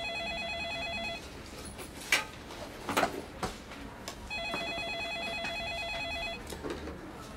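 Multi-line office desk phone ringing with a warbling electronic ring. One ring ends about a second in and a second ring of about two seconds starts a few seconds later, with a few short knocks in between.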